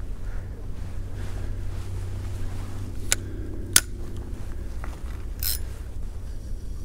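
Two sharp clicks from a spinning fishing reel being handled, about three seconds in and again just over half a second later, over a steady low rumble. A low hum comes in about a second in and fades after about five seconds, and a brief hiss follows.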